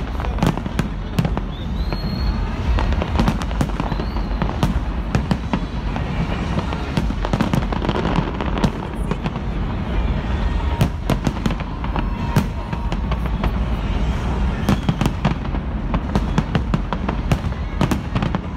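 Large fireworks display: a dense, continuous barrage of booms and sharp cracks, several a second, with no pause.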